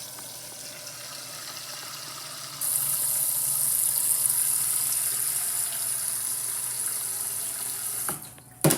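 Tap water running into a container, the stream getting louder and hissier about two and a half seconds in. The flow stops about eight seconds in, followed by a sharp knock near the end.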